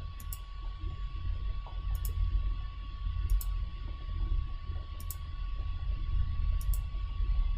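Computer mouse button clicking: five double clicks, each a press and release, about every one and a half seconds as points are placed, over a low rumble.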